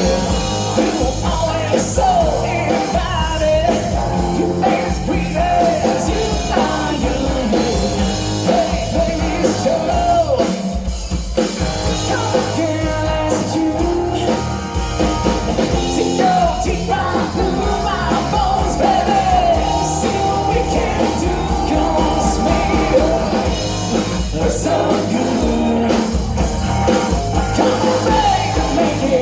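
A live rock band playing a rock-and-roll song, with a singer over guitar, bass and drums.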